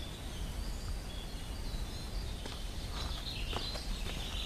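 Woodland ambience: faint bird chirps and a high trill over a steady low background hiss, with a few soft footsteps on leaf litter in the second half.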